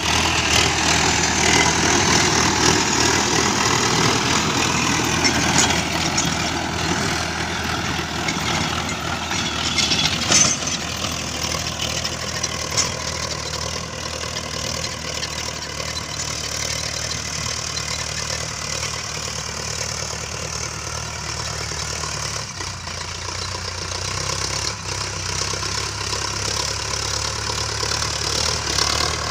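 Sonalika DI 750 RX tractor's diesel engine running steadily under load while it drives a 42-blade rotavator tilling dry soil. Loudest in the first ten seconds, dropping after that as the tractor moves off, and growing louder again near the end as it comes back.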